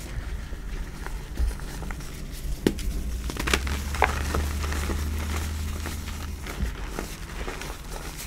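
Hands squeezing and crumbling reformed gym chalk in a pile of chalk powder: a continuous gritty rustle with several sharp crunches in the first half as chunks break.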